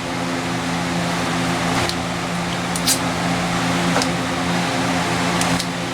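A fan running with a steady hum, made of several low tones over a hiss, with a few light clicks and handling noises, about four, spread through it.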